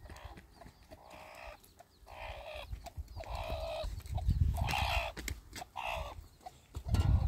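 A hen clucking in a run of short calls, each about half a second long, with a low rumble now and then, likely wind on the microphone.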